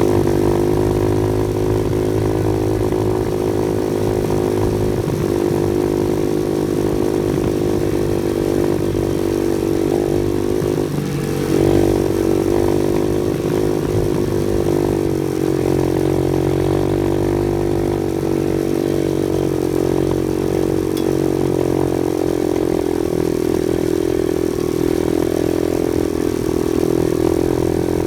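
Off-road vehicle engine running steadily on the trail, with a brief rise in revs about twelve seconds in.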